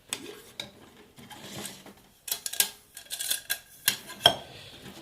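Aluminium parts of a Swiss Army mess kit knocking, clinking and scraping against each other as the nested kit is pulled apart by hand: a string of light metallic knocks, the loudest a little past four seconds in.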